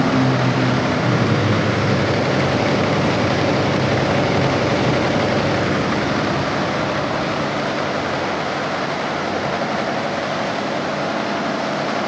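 SWF embroidery machine running steadily, with a dense, even mechanical noise.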